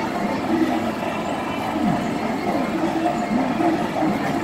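Children's spinning fairground ride running: a steady mechanical clatter with a tone that wavers up and down.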